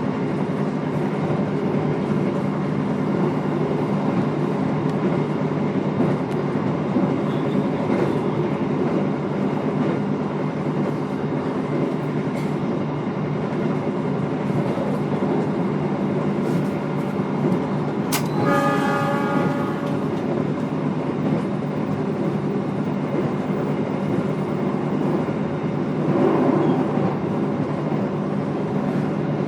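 Steady running noise inside a moving passenger railway carriage, with a few faint clicks. About two-thirds of the way through, the train's horn sounds for about two seconds.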